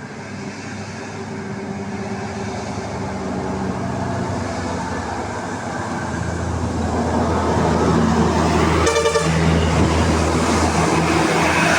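A bus approaching with its engine running and growing steadily louder. About nine seconds in, there is one short horn blast.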